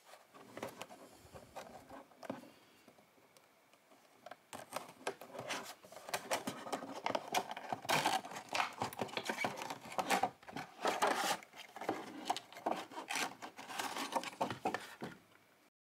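Clear plastic toy box being opened by hand: the cardboard display tray slides out of the thin plastic sleeve with crinkling plastic and scraping card. Faint rubbing at first, then busy crackling with many small clicks from about four seconds in.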